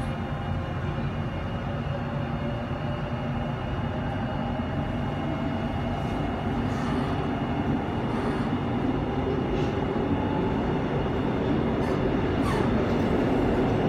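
Seoul Subway Line 1 train running through a tunnel, heard from inside the car: a steady rumble of wheels on rails with a faint steady whine and a few light rattles, gradually getting louder.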